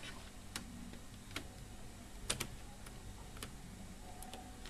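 Small screwdrivers clicking and scraping against the spindle motor mount of a DVD loader as the motor is levered out: a few light, scattered clicks about a second apart, the sharpest about two and a half seconds in.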